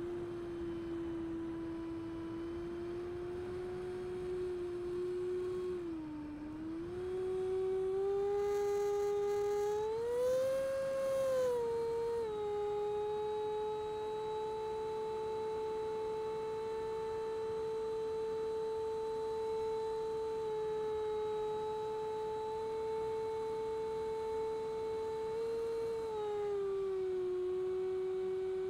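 80mm electric ducted fan of a Freewing Avanti model jet whining steadily in flight, its pitch following the throttle. The pitch dips about six seconds in, rises to a peak around ten seconds with a brief rush of air, holds steady for a long stretch, then drops near the end.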